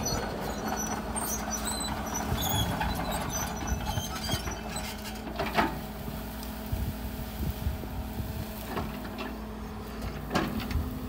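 Sumitomo SH130-5 hydraulic excavator's diesel engine running steadily under load while the bucket tears out brush and scrapes the ground, with a few sharp cracks about halfway through and near the end.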